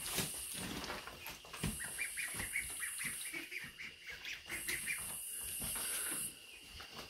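A group of ducklings peeping, many short high calls overlapping in quick succession.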